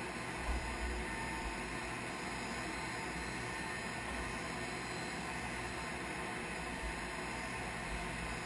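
Steady hiss with an uneven low rumble, the sound of wind and background noise on a wing-mounted camera's microphone; no engine is running.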